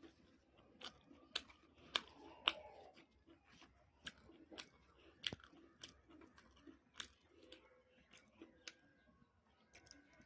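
Close-up eating sounds of a person chewing puri with chana dal curry: irregular wet mouth clicks and smacks, the loudest about two and a half seconds in.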